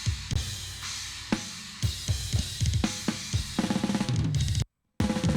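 Recorded live drum kit playing a groove, kick, snare and cymbals, run through a Tegeler Audio Manufaktur Vari Tube tube compressor. The playing gets busier about three and a half seconds in, and the sound cuts out for a split second near the end.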